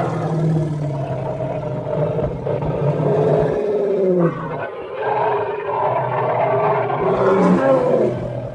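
Elephant sounds made into a creature's roar: long, low calls that slide down in pitch, one breaking off about four seconds in and another near the end.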